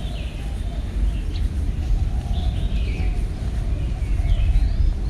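Birds chirping: short, curving calls come every second or so over a steady low rumble.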